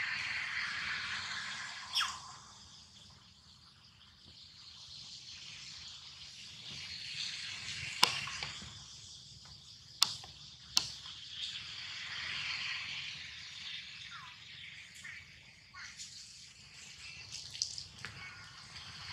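Outdoor forest ambience: a steady high insect hiss that swells and fades, with a few sharp clicks and a couple of short falling chirps.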